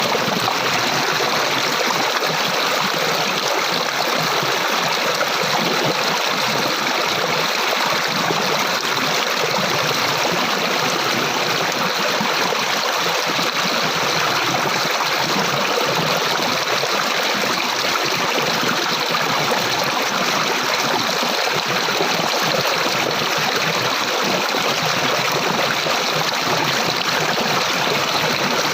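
Flowing water of a stream, a steady rushing and babbling.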